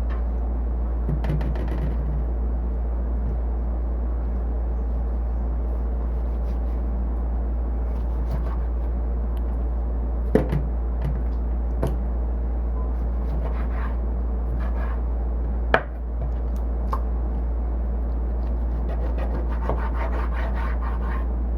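Kitchen food prep: a knife working on a cutting board, with scattered scraping and sharp knocks and a run of light taps near the end, over a steady low hum.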